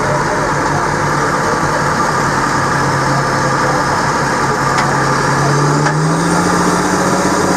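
Diesel engines of a crawler dozer and a loaded Peterbilt log truck running hard together as the dozer starts to tow the stuck truck out of the mud; the engine pitch rises about six seconds in as they pull.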